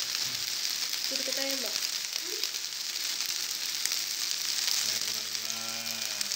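Skewers of marinated chicken satay sizzling on a hot grill pan over a gas burner, a steady hiss of fat and marinade frying, the satay nearly done.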